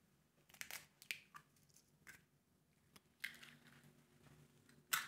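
Eggshell crackling as a raw egg is broken open and pulled apart by hand: a few light, scattered crackles and clicks. A faint rustle follows about three seconds in, with a sharper click near the end.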